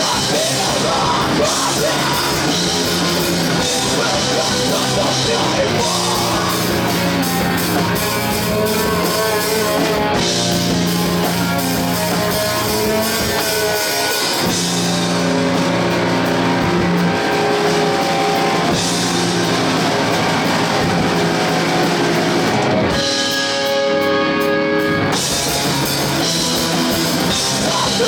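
A rock band playing heavy rock on drum kit and electric guitars. Near the end the drums drop out for about two seconds, leaving held guitar notes, before the full band comes back in.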